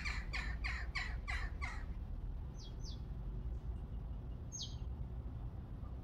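Jackdaw calling: a quick run of about six harsh, falling calls in the first two seconds. Then come a few short, high chirps and one high falling whistle.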